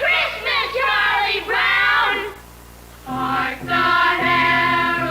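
Choir singing: wavering, sliding voices for the first two seconds, then after a brief pause about three seconds in, the choir holds steady sustained chords.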